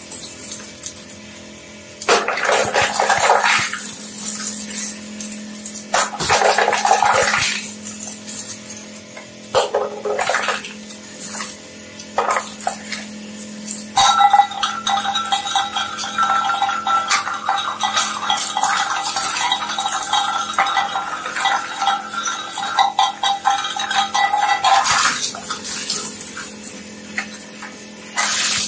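Twin-shaft shredder running with a steady hum, its toothed cutters crunching through items in several short bursts. About halfway through, a metal can is drawn in and grinds and rings for around ten seconds before the cutters clear, with another crunch near the end.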